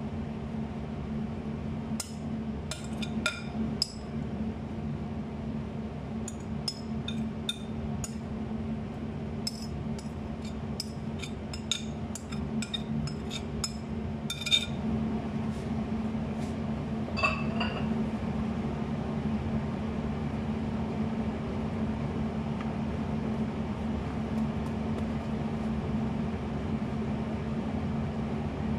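Something clinking against a glass bowl of dressing in quick, irregular runs, each tap ringing briefly; the clinks stop a little past halfway. A steady low hum runs underneath.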